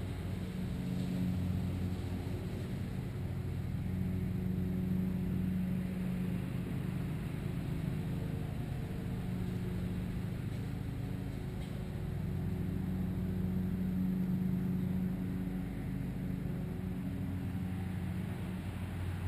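A steady low motor drone, like an engine running at a distance, swelling and easing every few seconds.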